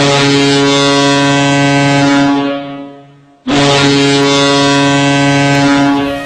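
Ice hockey arena goal horn sounding two long, loud blasts. The first fades out over about a second before the second starts.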